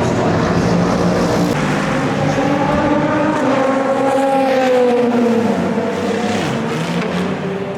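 Race car engine running at speed on the circuit. Its pitch climbs slowly to a peak about halfway through, then falls away.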